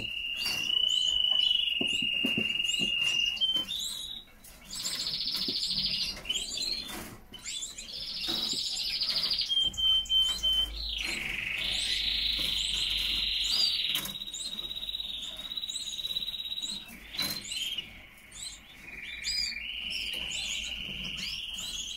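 Canaries singing: long held whistled notes and rolling trills that change every few seconds, with many short high chirps throughout.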